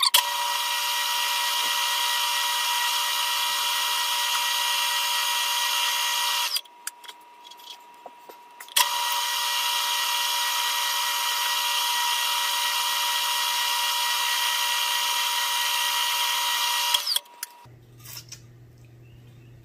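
Milling machine spindle running with a steady high whine while a twist drill bores through an aluminium block. The sound drops away about six and a half seconds in, comes back about two seconds later, and stops about seventeen seconds in, leaving a faint low hum.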